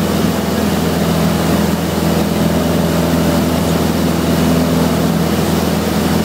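Piston engine and propeller of a single-engine light airplane, heard from inside the cockpit: a steady drone with a constant rush of air, unchanging throughout.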